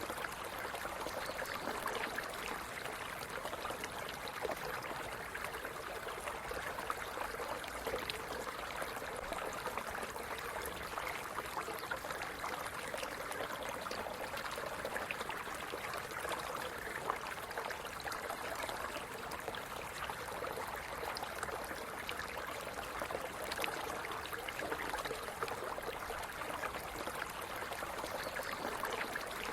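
Small stream running steadily over stones, with continuous trickling, splashing and gurgling water.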